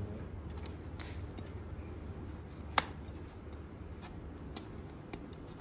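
Scattered sharp metallic clicks from a farrier's hand tools against the nails and shoe of a horse's hoof, with one louder click nearly three seconds in.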